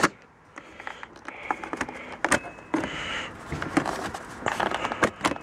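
Scattered light clicks and knocks of a hand handling the plastic engine and air-filter cover, with the engine off.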